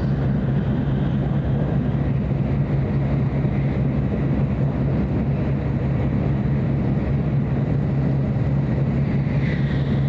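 Tokaido Shinkansen train running at speed, heard from inside the passenger car: a steady low rumble of running noise. A faint high whine comes in near the end.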